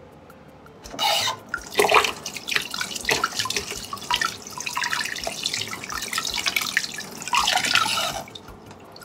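Kitchen tap water running into a stainless steel sink, splashing over a hand rinsed under the stream. It starts about a second in and stops shortly before the end.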